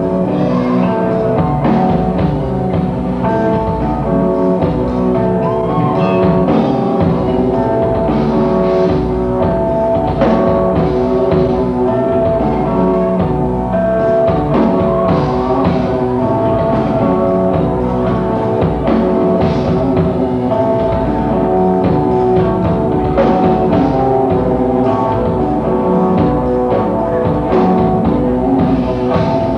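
Rock band playing live: guitar and drum kit, loud and unbroken.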